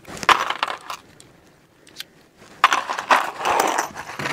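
Metal cartridge cases clinking and rattling in two short spells about two seconds apart: a revolver being unloaded and reloaded between loads.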